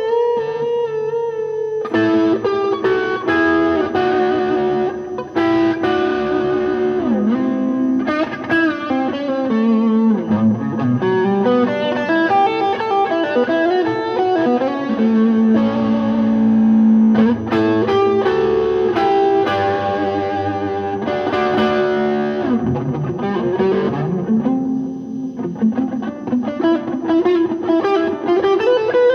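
Electric guitar played through a Kingsley Peasant overdrive pedal into a Lazy J 40 tube amp, giving a lightly driven tweed-style tone. It plays loose improvised lead lines: a held note at the start, then busy runs and chords with several string bends.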